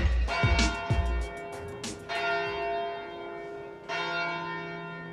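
A church bell ringing, struck about every two seconds, each stroke leaving a long ringing tone that slowly fades, with a deep hum under the last stroke. Background music with a heavy beat fades out in the first second and a half.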